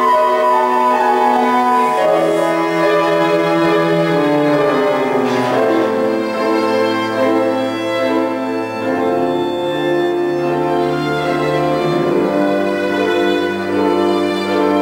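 Piano trio playing a classical piece: violin and cello bowing long held notes over a grand piano, the notes changing every second or two.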